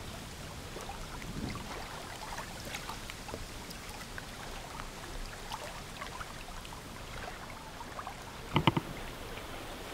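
Lake water lapping gently around a wooden pier, with faint scattered taps. Near the end comes a brief pitched sound in three quick pulses, the loudest thing heard.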